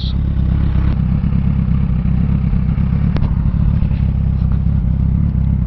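Suzuki Hayabusa's inline-four engine running steadily. A single brief click comes about three seconds in.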